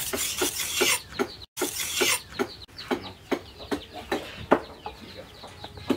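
Hand-forged knife blade stroked on a whetstone, a rasping scrape with each pass, during the first second or so and again briefly just before the middle. Through the rest, hens cluck over and over in short calls.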